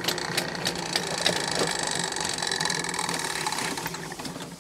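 Motorized sewer drain-cleaning machine running steadily, a motor hum with scattered knocks, while it snakes a clogged sewer line; it dies down near the end.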